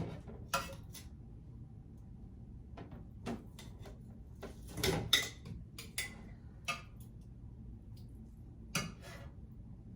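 Irregular light knocks and clinks of glass canning jars and kitchen utensils as pork spare ribs are packed into quart jars, the loudest cluster about halfway through.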